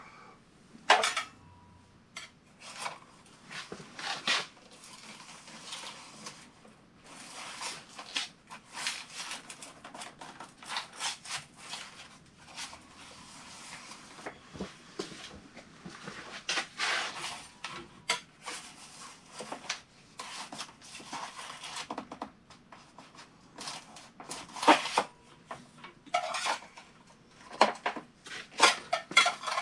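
Putty knife scraping under the foam-rubber seal of a power-vent water heater's sheet-metal blower hood, with irregular metallic clinks and scrapes as the stuck hood is pried and rocked loose.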